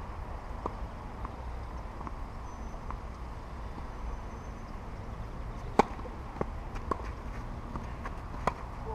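Tennis ball being hit with rackets and bouncing on a clay court: a few faint knocks early on, then a sharp racket hit about six seconds in as the point starts, followed by further hits and bounces of a rally, with another sharp hit near the end. A steady low hum lies underneath.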